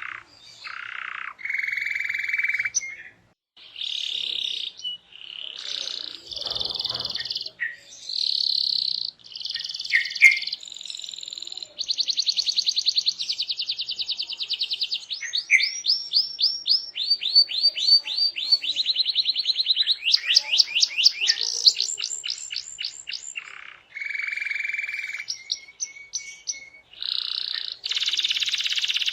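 Domestic canary singing vigorously in a long, continuous song of varied phrases: rapid trills and rolls, fast runs of repeated notes, and short steady whistled tones, with a few brief pauses between phrases.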